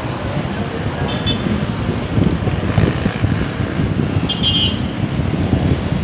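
Steady engine and traffic rumble from motor vehicles and motorcycles, with two brief high-pitched chirps, one about a second in and one past four seconds.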